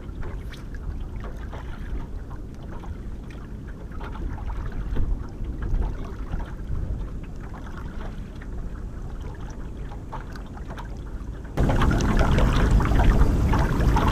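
Wind on the microphone and choppy water against a small aluminium boat, a steady rushing noise that turns suddenly louder about three quarters of the way through.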